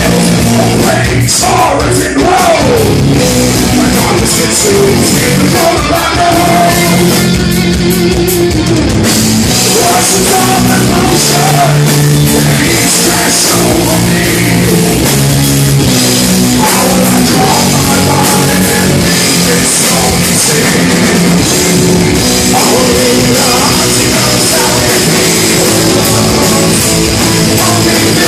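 Live heavy rock band playing loud: drum kit, guitars and a singer on a microphone, all close to the stage.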